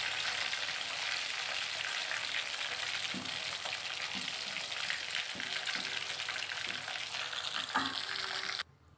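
Chicken pieces frying in hot oil in a metal kadai: a steady sizzle, with a few short knocks and scrapes of the spatula against the pan as the browned pieces are turned and lifted out. The sizzle cuts off suddenly near the end.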